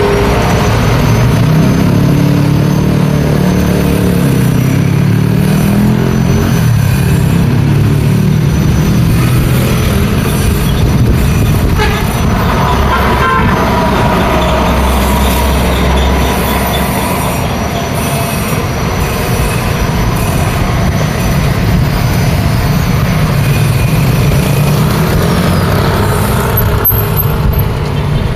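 Busy road traffic passing close by, with the low engine note of a heavy diesel vehicle in the first several seconds and a vehicle horn sounding about halfway through.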